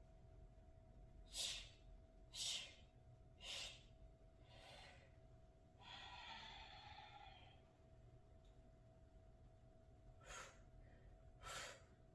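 A woman's short, sharp breaths out with the effort of exercise reps, about one a second in runs of three or four, with a longer drawn-out breath about six seconds in. A faint steady hum runs underneath.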